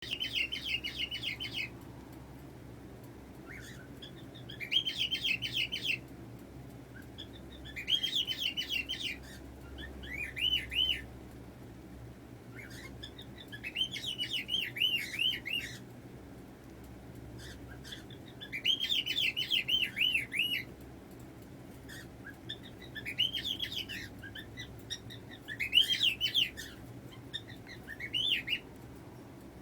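A cockatiel making bursts of quick, repeated chirping notes, a short phrase every two or three seconds.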